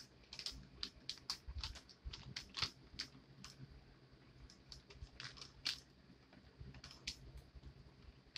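Foundation brush buffing foundation onto the face: irregular soft clicks and taps, one to three a second, as the bristles work over the skin.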